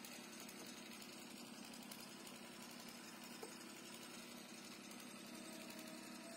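Near silence: a faint steady background hum, with one light click about three and a half seconds in.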